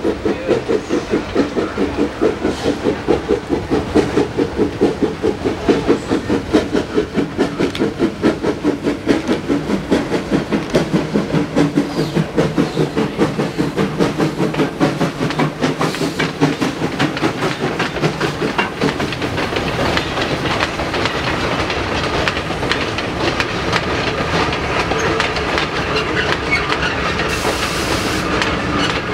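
Steam locomotive working uphill, its exhaust chuffing at about two beats a second. Later the chuffs fade into the steady rumble and clatter of carriage wheels rolling past over the rail joints.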